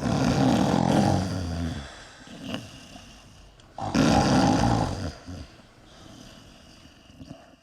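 A man snoring heavily: two loud snores about four seconds apart, each lasting over a second, with quieter breathing sounds between them.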